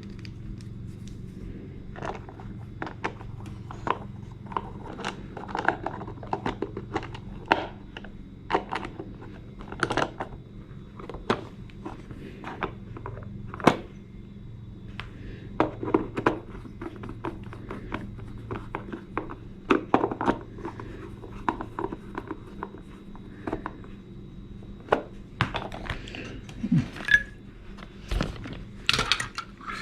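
Irregular clicks, taps and light knocks of wall clock parts being handled and fitted back together, over a faint low hum.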